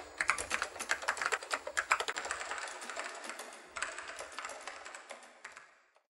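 Rapid, irregular clatter of many small clicks, fading out near the end.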